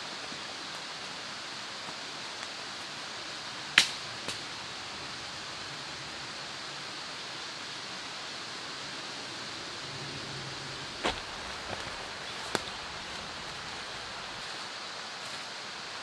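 Steady rush of water in a forest valley, with a few sharp clicks over it, the loudest about four seconds in and two more near eleven and twelve and a half seconds.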